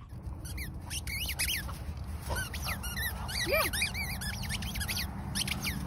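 Many short, high-pitched animal squeaks and chirps, coming in quick clusters over a low steady hum.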